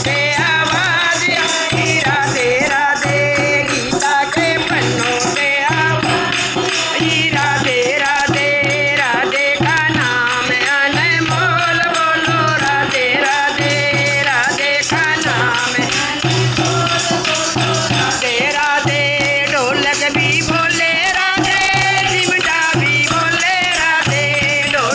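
Devotional bhajan music: a wavering melody over a steady low drone, with rattling percussion.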